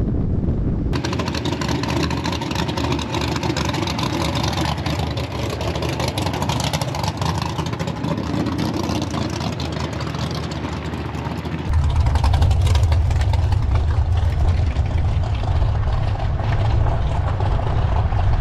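Drag car with a ProCharged Hemi engine, heard from inside the car as it rolls along: wind and road noise. About two-thirds of the way through, this changes suddenly to a louder, steady, deep engine drone as the car drives slowly at low revs.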